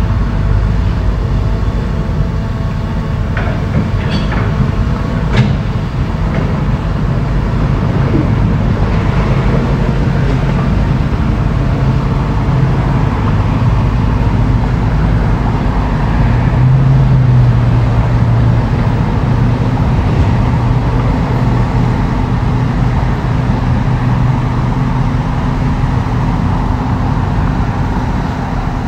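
Heavy diesel engine of earthmoving machinery running steadily, its pitch rising about halfway through and holding there as it works under load. A few sharp clanks come a few seconds in.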